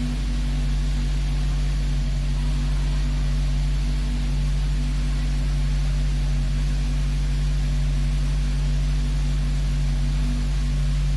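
Suzuki Ritz automatic running after a cold start with a steady low drone and grinding hum, the grinding noise it makes when started cold.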